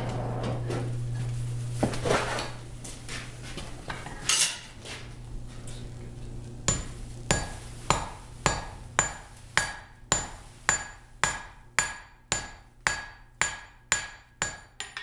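Hammer blows on steel at welding heat on an anvil, driving the pieces together into a forge weld. After a few seconds of scattered clatter and scraping, about sixteen evenly paced strikes follow at roughly two a second, each ringing briefly.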